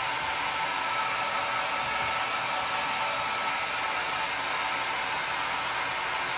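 Handheld hair dryer running steadily on high, blowing air through wet hair: an even rush of air with a faint steady motor whine.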